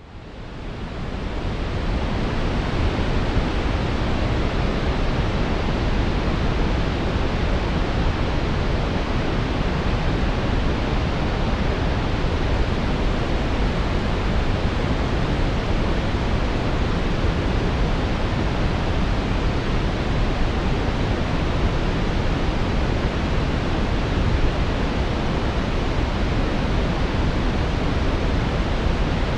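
Steady brown noise: a deep, even rushing hiss weighted to the low end, fading in over the first couple of seconds and then holding level.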